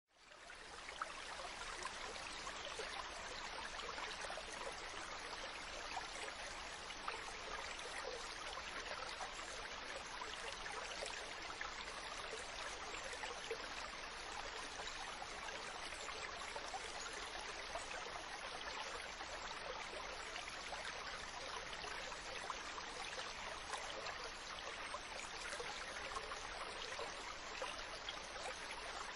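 A stream of running water flowing steadily, fading in over the first second.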